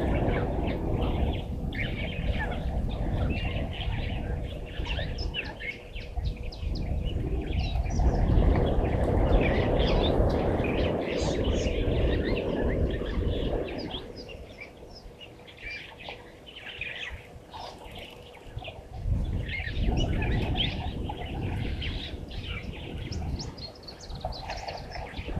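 Many small birds chirping and calling, short overlapping calls throughout, over a low rushing noise that swells in the middle and again near the end, with a faint steady hum underneath.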